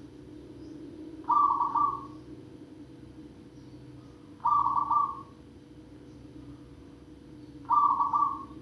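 Zebra dove (perkutut) cooing: three short calls of rapid, rolling notes, each under a second long and about three seconds apart, over a steady low hum.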